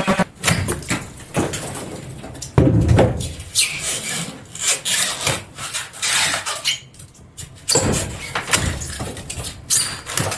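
Irregular scraping and knocking of wood and debris being pried and pulled out during a boat-interior teardown.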